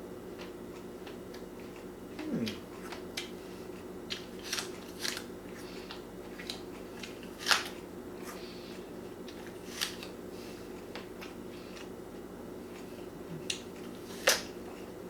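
A raw apple being bitten and chewed: irregular crisp crunches, one loud crunch about halfway through and another near the end, over a steady low hum.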